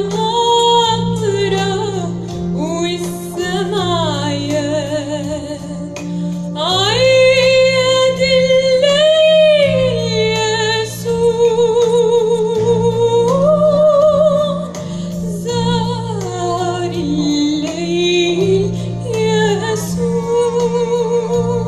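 A woman sings a solo Orthodox church hymn in long, ornamented phrases with strong vibrato, gliding up to higher held notes partway through. A steady low drone sustains underneath.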